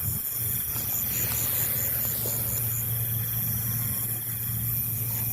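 A steady low engine hum, with a faint high pulsing chirp that fades out about three seconds in.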